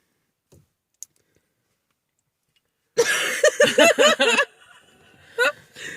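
A pause with only a faint click or two, then about three seconds in a quick run of short, bright pitched bursts of laughter from a person, about five a second for a second and a half, with one more brief laugh near the end.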